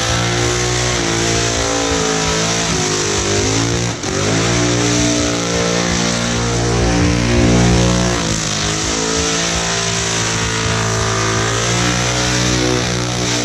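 Burnout car's engine held at high revs, its pitch wavering up and down as the throttle is worked, with a brief drop about four seconds in.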